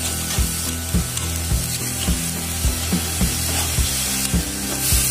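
Ground spice paste sizzling in oil in a kadai, scraped and stirred with a metal spatula in knocks about twice a second, with background music underneath.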